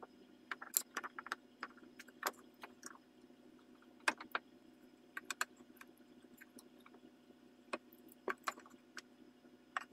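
Light clicks and taps of a steel dial caliper being set against and lifted off a walnut stock blank, with pencil marking between measurements, in scattered small clusters over a steady low hum.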